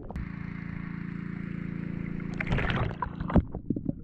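Underwater sound picked up by a camera on a snorkeler's goggles: a steady droning hum with a faint hiss above it. About two and a half seconds in, a second or so of loud crackling and knocks breaks in, and a lower hum follows near the end.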